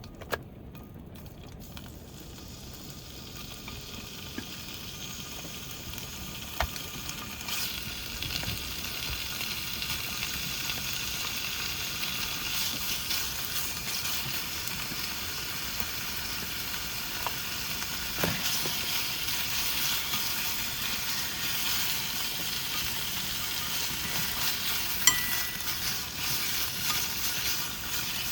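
Food sizzling in a frying pan. The sizzle swells over the first several seconds and then holds steady, with a few sharp clinks of a utensil against the pan.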